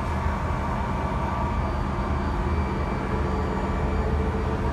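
Steady low rumble with faint constant whines: aircraft machinery running on the apron, heard from inside an Airbus A330-200's bulk cargo hold.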